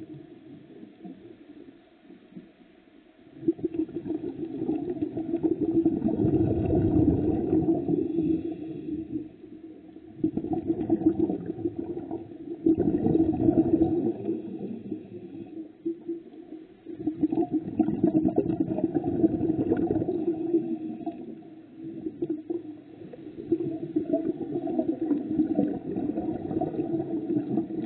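Low rumbling water noise picked up by a camera underwater. It swells in about five surges of a few seconds each, with quieter gaps in between.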